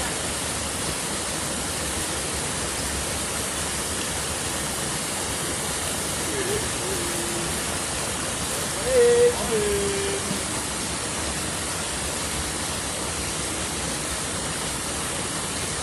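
Steady rushing of flowing water around a wading angler. About nine seconds in comes a short, pitched, voice-like sound, the loudest moment. A fainter one comes about six and a half seconds in.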